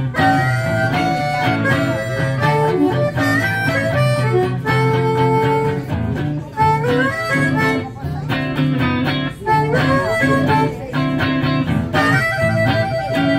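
Live blues band playing an instrumental passage: electric guitar over a steady bass line, with held, bending lead notes.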